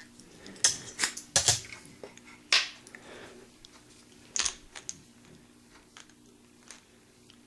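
Metal insert of a Zippo lighter being pulled out of its case and handled: a handful of sharp metallic clicks and light knocks, the loudest about two and a half seconds in.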